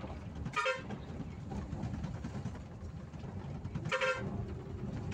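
Bus engine and road noise heard from inside the cab while driving, with two short horn toots about three and a half seconds apart.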